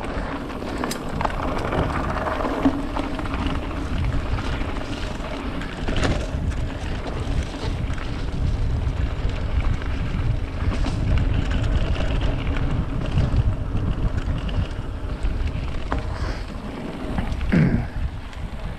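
Mountain bike descending a dirt singletrack at speed: wind rushing over the camera microphone with the rumble and rattle of the bike over the trail, broken by occasional sharp knocks. A short rising squeal comes near the end.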